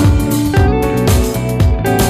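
Background music with plucked guitar and a steady drum beat.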